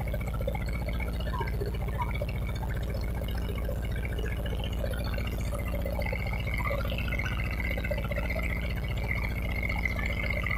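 A small wooden boat's engine running steadily while under way, with water rushing along the hull. A thin high tone grows louder from about six seconds in.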